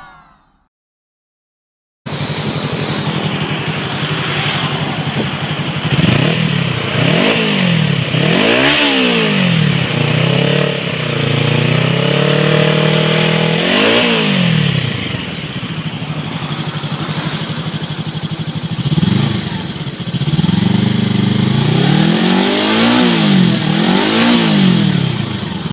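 Stock-exhaust 250cc sport motorcycle engine idling and being revved in short throttle blips, each rising and falling back to idle, with one longer held rev in the middle. It comes in about two seconds in, after a brief silence.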